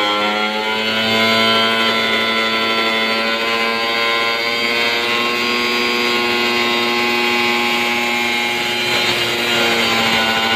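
Electric angle grinder running steadily with a high whine as its disc cuts through the top of a blue plastic barrel.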